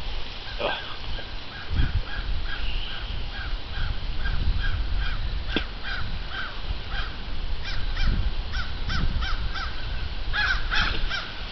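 Crows cawing in a long run of short, repeated caws, several in quick succession, loudest in a cluster near the end.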